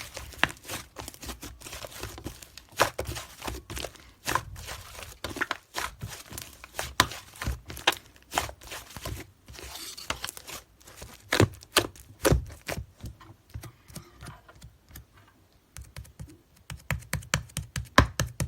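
Irregular clicks and taps with some crinkling, as of small objects being handled, several louder taps among them.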